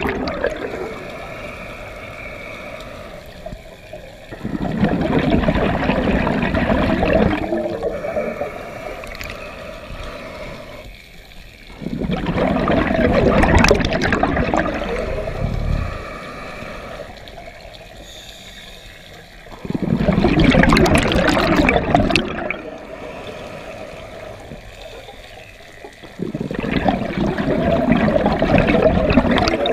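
Scuba diver breathing through a regulator underwater: four loud rushes of exhaled bubbles, each about three seconds long and about seven seconds apart, with quieter stretches of inhaling between.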